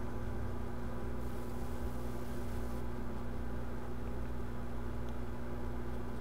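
Steady electrical hum of microsoldering bench equipment, with a faint brief hiss about a second in.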